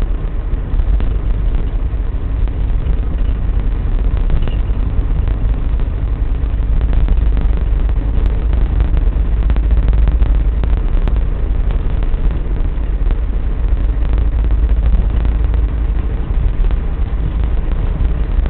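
Steady low rumble of a car on the move, engine and road noise running evenly without changes.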